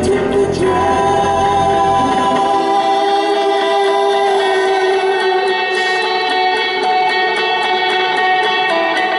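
Live band music: electric guitar and long held sung notes. The deep low end drops away about two and a half seconds in, and a light, steady tick at about three to four a second comes in past the middle.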